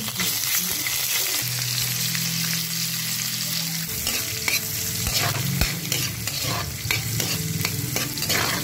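Pork, garlic and spring onion sizzling in a hot metal pan while a spatula stirs and scrapes against the pan, with frequent short scrapes and clicks over the steady sizzle. A low steady hum comes in under it about a second and a half in.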